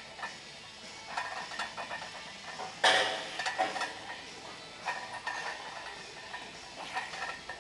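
Metal weights clinking and clanking in a gym, with one loud clank about three seconds in.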